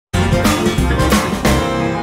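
Intro jingle music with a drum beat.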